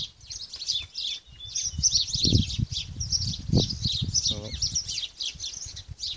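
Songbird singing: a continuous run of rapid, high chirping notes, with irregular low rumbles underneath.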